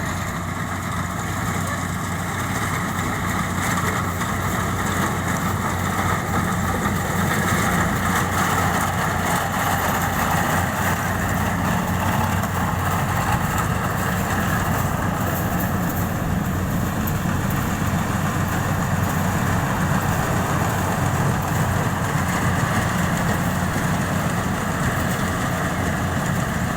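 Engine of a rice harvesting machine running steadily, a constant drone that grows a little louder over the first several seconds.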